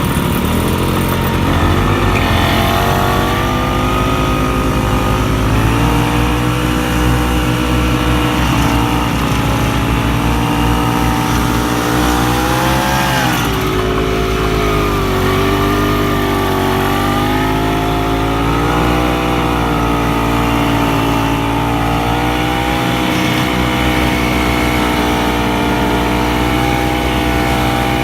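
Vintage snowmobile's two-stroke engine running under way, its pitch rising and falling with the throttle, with a quick rise and dip about halfway through.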